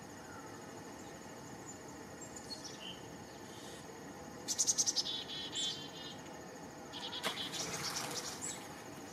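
Steady background chorus of crickets or other insects, with small songbirds calling over it: a rapid run of about seven high notes about four and a half seconds in, and another burst of high, twittering calls around seven seconds in.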